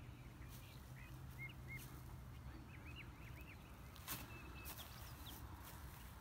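Faint open-air quiet with small birds chirping briefly several times in the distance, over a faint low steady hum. A light click about four seconds in.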